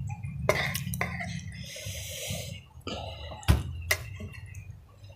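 Metal spoon clinking and scraping against a ceramic soup bowl a few times while soup and meatballs are scooped, with a short hiss about two seconds in. A steady low hum runs underneath and stops near the end.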